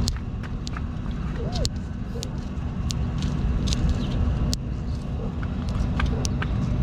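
Thumb joint cracking and popping in short, sharp clicks at irregular intervals, a few a second, over a steady low rumble.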